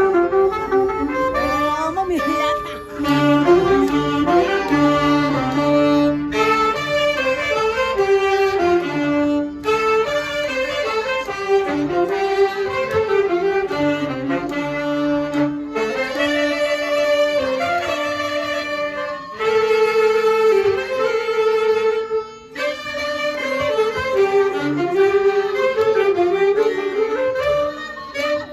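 Small amateur band playing a tune live, the melody going in phrases with short breaks between them.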